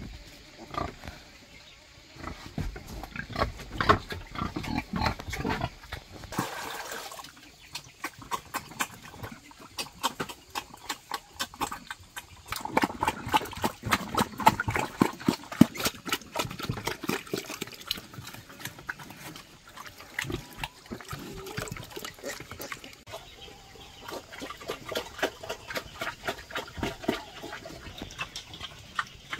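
A sow and her young piglets grunting and snuffling, with many short clicks and knocks among the grunts; the grunting is densest about halfway through.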